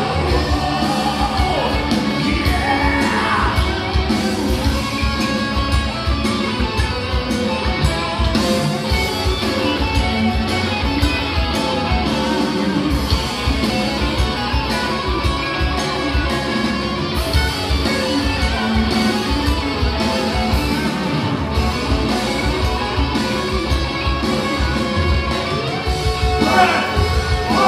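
Symphonic metal band playing live: electric guitars, keyboards and a driving drum beat, with a singer's voice rising in near the start and again near the end. Heard from the crowd in a large, echoing hall.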